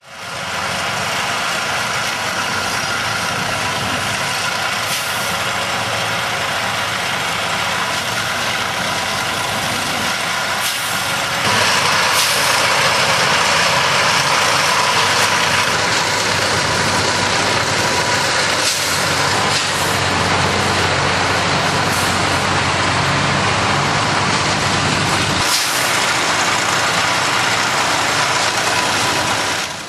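Steady, loud running of heavy diesel engines and machinery. The sound grows louder about eleven seconds in, and it has a few short sudden breaks.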